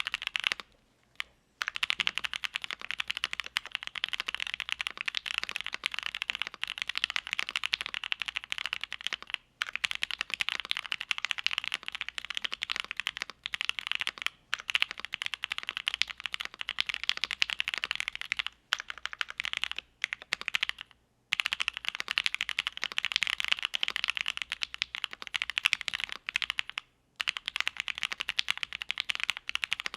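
Continuous typing on a mechanical keyboard with Gateron Oil King linear switches, a polycarbonate plate and GMK keycaps: a steady stream of keystrokes, broken by short pauses every few seconds.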